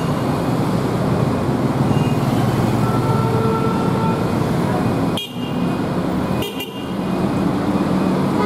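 Street traffic of scooters, motorcycles and cars running past, with a vehicle horn held for about a second and a half, about three seconds in.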